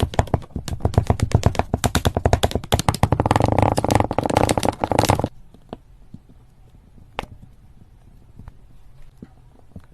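Slime being squeezed and worked by hand, giving a fast run of sticky clicks and pops that stops suddenly about five seconds in. After that only a few faint clicks remain.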